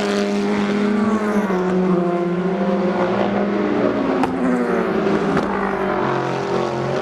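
Several race car engines running together as cars pass, their notes sliding down and climbing again in pitch, with two sharp cracks partway through.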